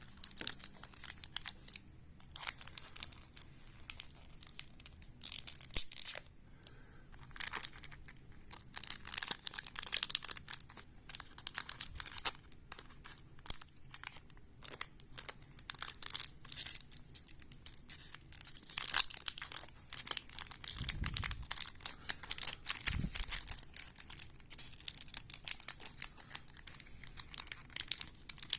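Plastic baseball card pack wrappers being crinkled and torn open by hand, with irregular crackling throughout. Two dull low bumps come about two-thirds of the way through.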